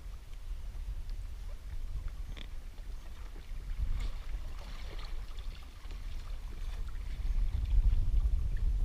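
Outdoor wind rumbling on the microphone aboard a kayak, with water moving around the hull. Faint light ticks and scrapes are scattered through it, and the rumble gets louder near the end.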